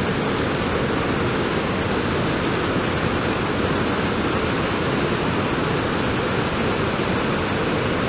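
Steady rush of a low waterfall and the fast white water below it, an even roar of falling and churning water.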